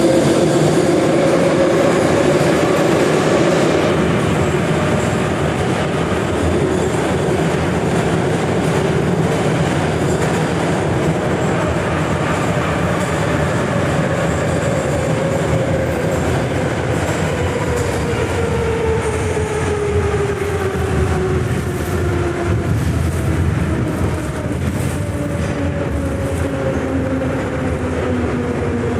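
Soviet-type 81-717 "Nomernoy" metro train running through the tunnel, heard from inside the car: a steady rumble of wheels on rails under the whine of the electric traction motors. The whine's pitch falls steadily through the second half as the train slows.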